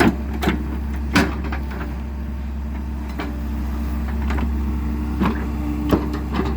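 A vehicle engine running steadily with a low rumble, with sharp clicks and knocks at irregular moments over it.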